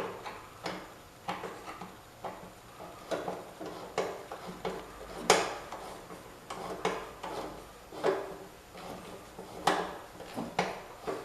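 Irregular metal clinks and knocks, one or two a second, from a screwdriver working a fastener on the gear shifter of a 1968 John Deere 110 garden tractor; the loudest knock comes about five seconds in.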